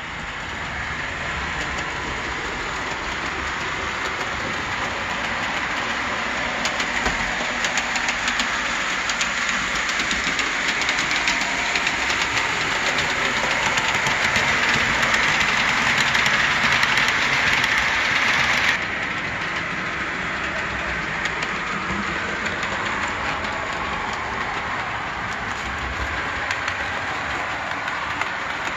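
O scale model steam locomotive, a mid-1940s F. W. Gresham Wabash J-1 Pacific, running along the layout track: a steady mechanical whir from its drive with many small clicks of wheels on the rails. The sound grows slowly louder and drops off suddenly about two-thirds of the way through.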